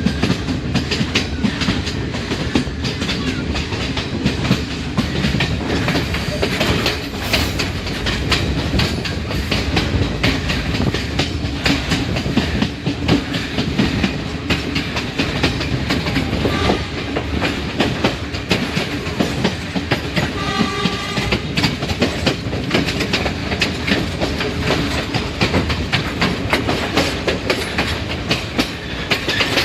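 Train running on the Kelani Valley line, heard from inside a carriage: a steady rumble with dense clattering of wheels over the track. A brief horn sounds about two-thirds of the way through.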